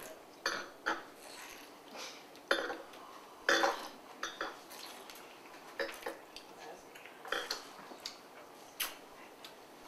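Stemmed wine glasses being picked up and set down on a granite countertop: about a dozen light, irregular clinks and taps.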